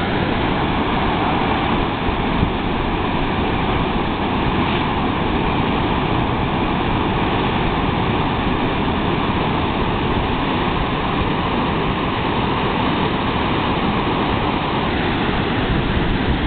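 Ocean surf, a steady rushing noise of breaking waves with no pauses.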